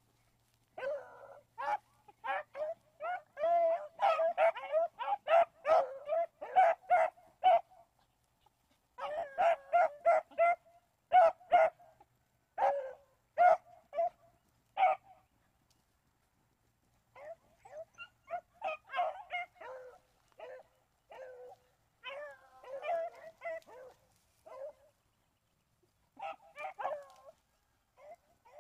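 Pack of beagles giving tongue on a rabbit's scent: quick runs of short, high yelps and barks from several hounds, coming in bursts separated by brief pauses.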